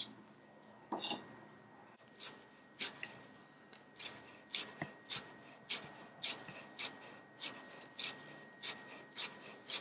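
Chef's knife chopping chives on a wooden cutting board. After a single cut about a second in, the blade comes down steadily about twice a second, each stroke a short tap of knife on board.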